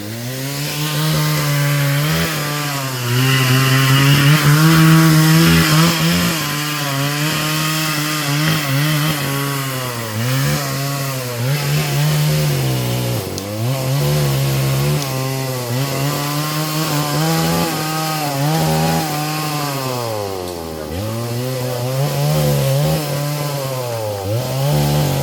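Chainsaw running at high revs and cutting wood from a fallen tree. Every few seconds the engine pitch sags as the chain bites into the wood, then climbs back. The saw stops abruptly at the end.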